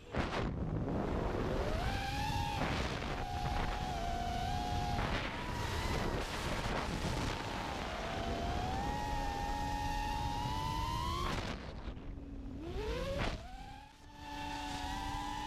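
Racing quadcopter's Emax 2306 2400KV brushless motors on APC 5x4x3 three-blade props, heard from the onboard camera: a whine that rises and falls as the throttle changes, over rushing wind noise. It cuts out briefly twice, near the middle and again near the end, then comes back at a steady pitch.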